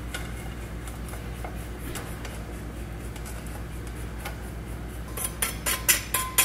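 Dry powder mix pouring quietly from a tilted stainless steel bowl into a metal pot, over a steady low hum. About five seconds in come quick metallic taps on the bowl, two or three a second with a short ring, knocking the last powder out.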